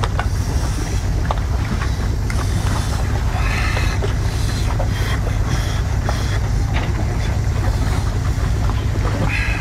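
Chewing and the small clicks and crackles of crab shell being bitten and picked apart, over a steady low rumble.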